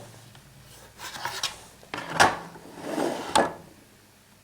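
A knife being handled and set down on a hard surface: rubbing and scraping handling noises, with a sharp knock about two seconds in and another near three and a half seconds.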